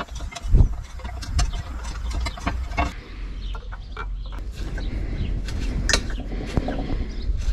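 Scattered small metal clicks and scrapes from a hand tap in a tap wrench being turned into the bolt holes of an aluminium oil pan, over a steady low rumble.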